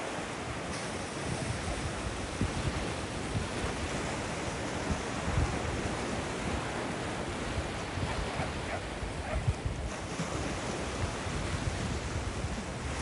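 Ocean surf breaking and washing up a sandy beach in a steady hiss, with gusty wind buffeting the microphone in uneven low rumbles.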